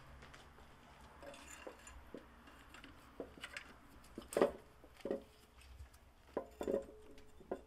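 Scattered light metal knocks and clinks as a cylinder head is set and shifted on an engine block, about half a dozen hits with the loudest a little past halfway.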